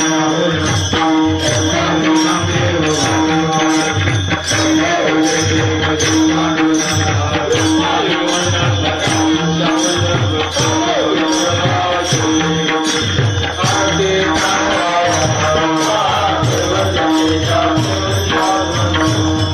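Devotional bhajan music: a steady held drone, hand-drum beats and small hand cymbals striking about twice a second, with voices singing over it.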